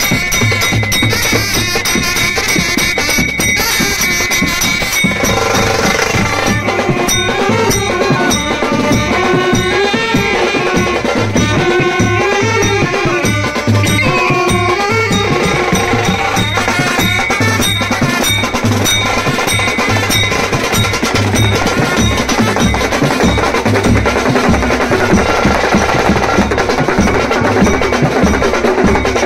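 Live Indian brass band music: drums beaten with mallets in a steady, driving rhythm, with saxophones playing a melody over them from about five seconds in. Near the end a hand-held damru drum is shaken.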